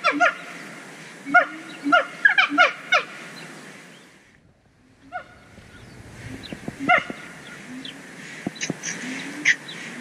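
Siamang gibbons singing: rapid series of short, honking barks in the first three seconds, a brief lull, then scattered further calls.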